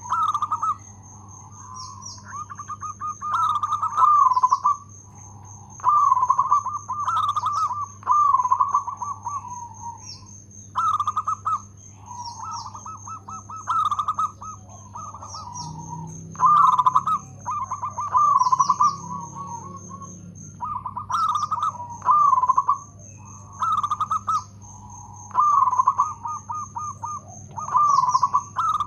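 Local Indonesian zebra dove (perkutut) singing its loud cooing song: repeated phrases of rapid, rolling coos, each about a second long and coming every two seconds or so.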